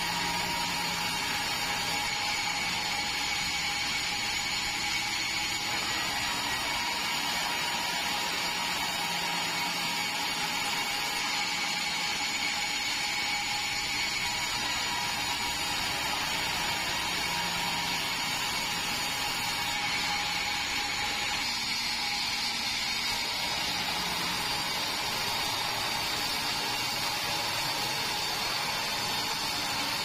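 Band sawmill running, its blade sawing through a red meranti log: a steady mechanical whine with several high tones, at an even level throughout.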